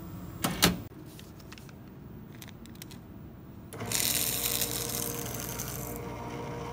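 Two sharp clicks about half a second in. About four seconds in, a Kostal office paper shredder starts up, its motor humming as it shreds a paper receipt loudly for about two seconds, then running on more quietly once the paper is through.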